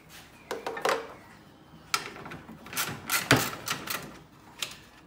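Metal hand tools clinking and clattering: a string of sharp clinks at uneven intervals, the loudest a little past three seconds in.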